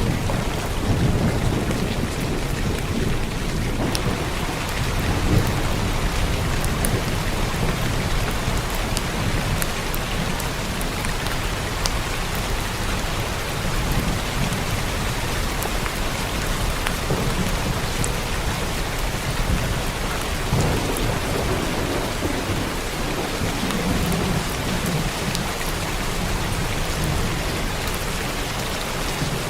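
Steady rain falling on a roof, with fine scattered drop hits, while low thunder rumbles during the first few seconds and again past the middle.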